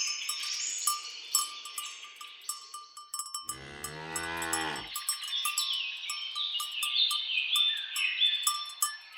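A cow moos once near the middle, one call of about a second and a half, over birds singing a continual run of quick falling notes and a steady patter of light ticks.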